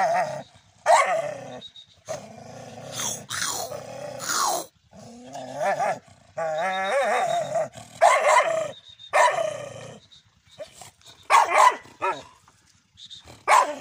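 Chained dog barking and growling in repeated bouts: several sharp, loud barks between longer, wavering growls.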